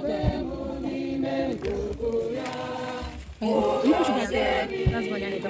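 A group of people singing together, holding long notes, with a short break about three seconds in before the singing resumes.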